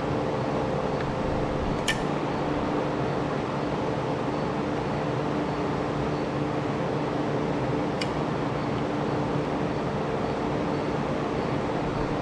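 A fan running with a steady hum, broken by two sharp clicks, about two seconds in and again about eight seconds in, from a Phillips screwdriver driving small machine screws.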